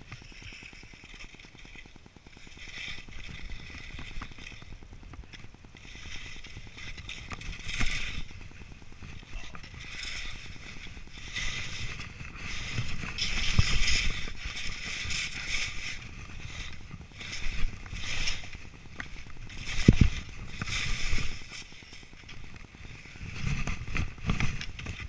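Skis hissing and scraping through snow in repeated turns, with sharp thumps about 8, 13 and 20 seconds in, the one near 20 seconds the loudest, as the skis hit bumps in the tree run.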